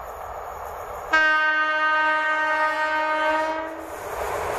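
PKP class EP08 electric locomotive sounding its horn once, a single steady high tone held for about two and a half seconds. Near the end the noise of the train running past rises.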